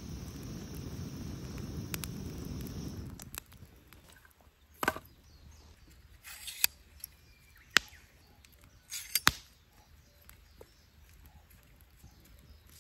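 A steady rushing of air blown through a fire-blowing pipe into a small wood fire, stopping about three seconds in. Then come a few separate sharp clacks and knocks as metal fire tongs shift split firewood in a stainless-steel fire stand.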